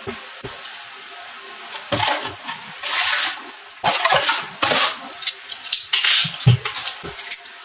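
Irregular handling sounds: water splashing and the clatter of containers being moved, in short bursts.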